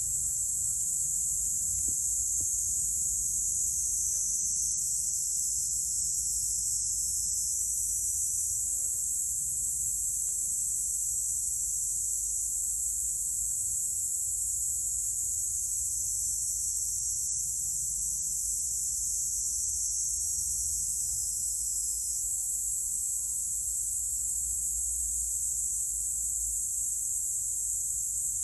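Steady, unbroken high-pitched drone of a chorus of insects, with a faint low rumble underneath.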